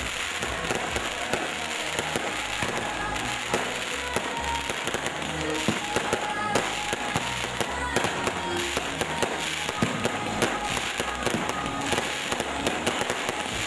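Fireworks display: aerial shells bursting in a rapid, irregular series of bangs and crackles, with music playing in the background.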